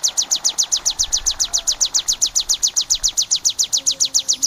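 Ciblek (prinia) song: a rapid, machine-even train of short high notes, about eight a second, each sliding slightly down in pitch.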